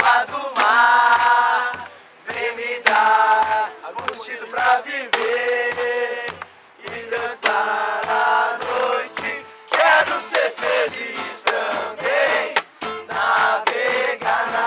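A group of campers chanting together in unison, in loud short phrases with brief pauses between them.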